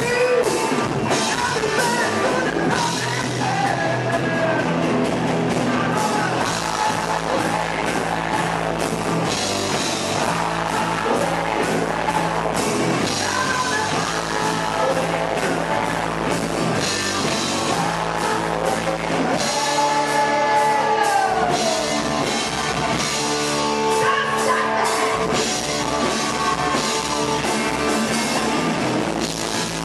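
Live rock band playing: electric guitars, bass and drum kit, with a singer's voice over them. About twenty seconds in, the deepest bass drops away for a few seconds, then returns.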